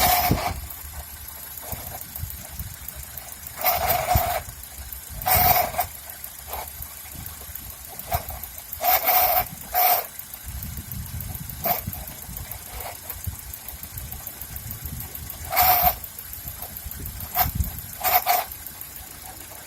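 A Toyota Avensis (first generation) idling cold, with a low, steady rumble and a rustling or whining noise from the gearbox. The owner was told this is typical of a worn gearbox shaft bearing. About eight short, loud, irregular bursts cut across it, and these are the loudest sounds.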